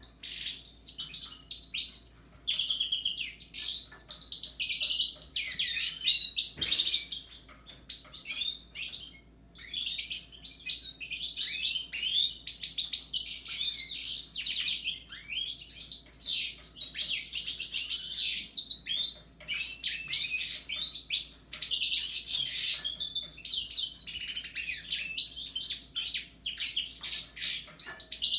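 Caged European goldfinches, Siberian and parva races, singing together with a Raza Española canary: a dense, continuous twittering of rapid high chirps and trills, with a short lull about eight seconds in.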